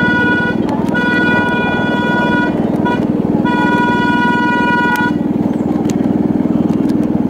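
Horn of a miniature ride-on train sounding a single-note long, long, short, long signal, the pattern of a railroad crossing signal, over the steady running of the train's small engine. The last long blast stops about five seconds in, and the engine keeps running.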